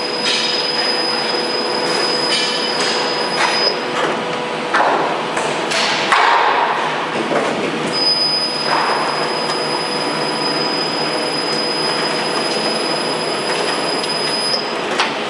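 Door frame roll forming machine running, steel strip feeding through its forming rollers with a steady mechanical hum. A thin high squeal holds for the first few seconds and again from about eight seconds in, with scattered metallic knocks and clatters, the loudest about six seconds in.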